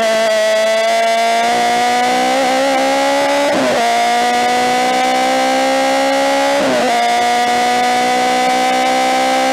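BMW M3 DTM race car's four-cylinder engine at high revs under full throttle, its note climbing slowly in each gear. Two quick gear changes break it, about a third and two-thirds of the way through.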